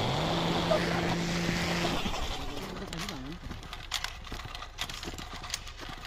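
A bus engine running, its low hum rising in pitch at the start and then holding steady before fading out after about two seconds. Then scattered crunching footsteps on snow.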